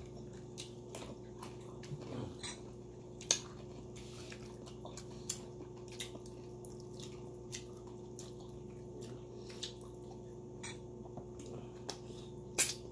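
Quiet eating noises: scattered small clicks and wet mouth sounds as air-fried milkfish is picked apart by hand and chewed, a few sharper clicks standing out, over a steady low hum.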